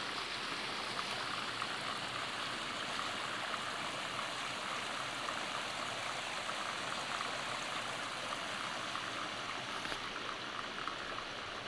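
Small mountain-creek cascade: a steady rush of water spilling over rocks.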